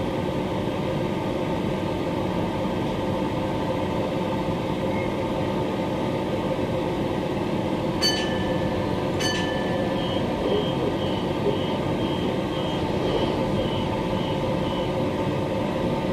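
Steady hum of a standing Queensland Rail electric multiple unit's onboard equipment, heard inside the carriage. About eight seconds in come two clicks with a high electronic tone, then a faint, evenly repeating high beep for about five seconds.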